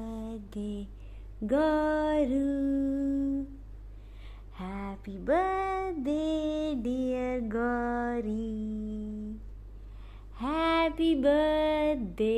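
A woman singing a slow tune in three phrases with long held notes, over a steady low hum.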